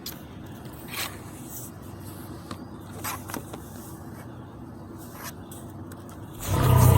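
Low steady background hum with a few faint clicks and rustles; about six seconds in, a much louder sound with a deep steady pitch starts abruptly.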